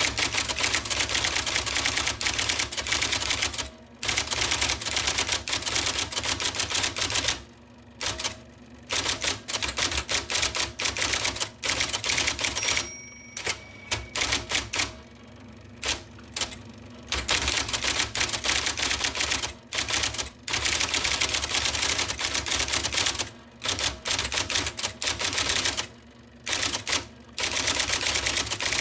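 1979 IBM Selectric II electric typewriter typing: the type ball strikes the paper in quick runs of many strokes a second, broken by short pauses, with the motor humming steadily underneath. A brief ringing tone sounds about halfway through.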